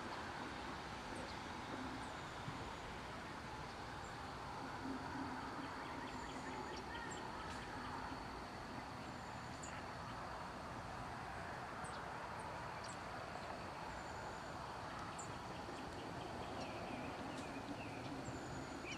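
Open-air rural ambience: a steady background noise with small birds giving short, high, down-slurred calls every second or two, and a faint steady high tone. A few lower chirps join near the end.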